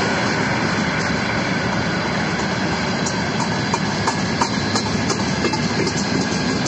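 Freight train of tank cars and open wagons rolling past at speed: a steady, loud rumble of wheels on rail, with sharp clicks as the wheels cross rail joints from about three seconds in. At the start, the tail of an ED4M electric multiple unit rushes by.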